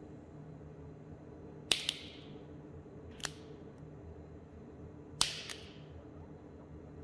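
Metal lathe turning slowly with a steady low hum. Sharp double clicks come about every three and a half seconds, with a fainter single click between them, as the spinning GoPro rig knocks once or twice per turn.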